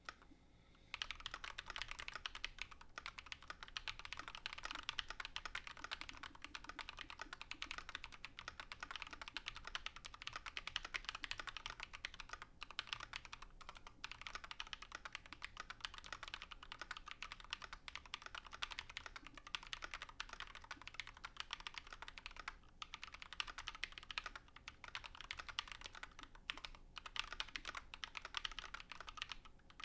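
Fast typing on a GMMK Pro mechanical keyboard with lubed Glorious Panda tactile switches, an aluminium plate and white PBT keycaps: a dense run of key clacks that starts about a second in, with a few short pauses.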